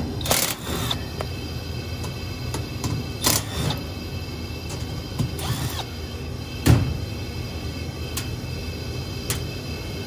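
Cordless drill-driver spinning in short bursts, three times, backing screws out of a sheet-metal access panel on a rooftop HVAC unit, with a sharp knock about two-thirds of the way in, over a steady low hum.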